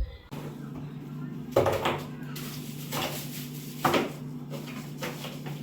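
Several short knocks and clatters of things being handled while the freezer compartment is cleaned, over a steady low hum.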